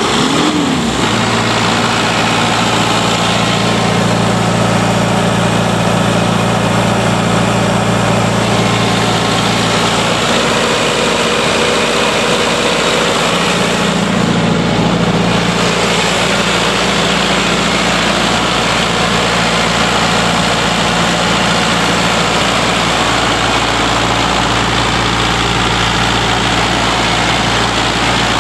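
Diesel engine of a Kaeser M100 portable air compressor running steadily just after starting. Its pitch briefly rises and falls in the first second, then it settles into an even run.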